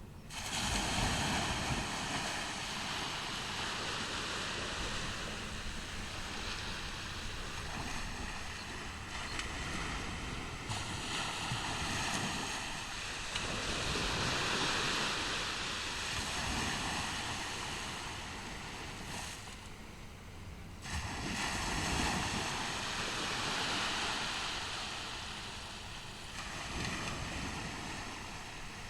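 Ocean surf on a beach: waves breaking and washing up the sand in slow swells, several seconds apart. Wind rumbles on the microphone throughout.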